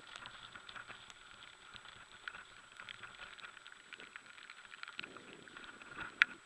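Mountain bike rolling down a wet gravel trail, faint and muffled: a steady pattering of many small clicks and rattles, with a couple of sharp knocks near the end.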